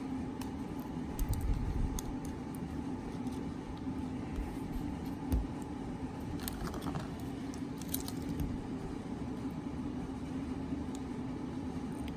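Faint scattered clicks and small snaps of tiny plastic support columns being picked off a 3D print, over a steady low hum.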